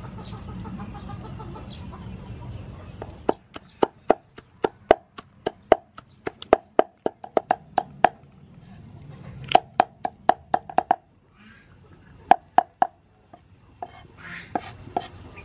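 Cleaver chopping soaked red chillies into a paste on a wooden chopping block: sharp knocks with a short ring, starting about three seconds in and coming in quick, irregular runs of several strikes a second, with a couple of short pauses near the end.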